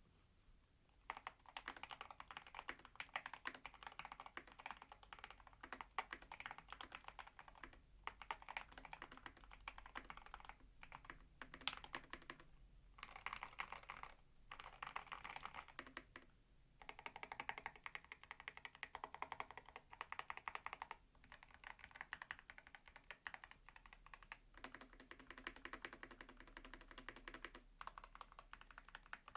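Fast, continuous typing on a Hall-effect magnetic-switch mechanical keyboard with Gateron magnetic switches. Keystrokes come in long runs with short pauses every few seconds.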